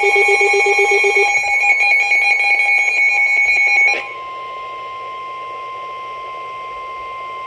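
Electronic alert tones: a loud layered alarm with a fast pulsing beep for about four seconds, then the steady single-pitch NOAA Weather Radio warning alarm tone sounding alone until it cuts off just before the end. The tone signals that a severe thunderstorm warning broadcast follows.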